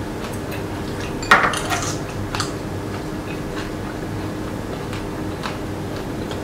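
Metal chopsticks and spoons clinking and tapping against ceramic bowls and plates while eating, in scattered light clicks. The sharpest clink comes about a second in.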